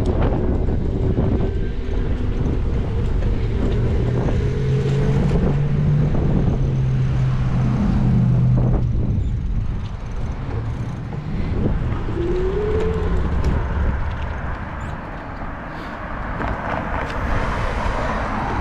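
Car driving along a city street: steady engine and road noise, the engine's note holding for a few seconds before the sound eases off, as if slowing.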